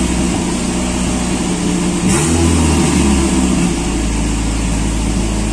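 A Toyota AE92 Corolla's 4E-FTE turbo four-cylinder idling, given one quick throttle blip about two seconds in; the revs rise and fall back to a steady idle. The blip tests whether the idle still hunts up and down after revving, a fault the owner traced to a faulty throttle position sensor.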